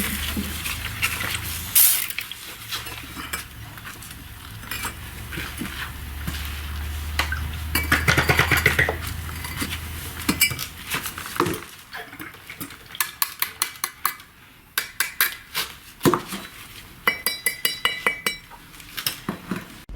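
Metal hand tools clinking, knocking and scraping against brick and mortar, with a stretch of scraping about eight seconds in and a quick run of ringing clinks near the end. A low hum runs under the first half.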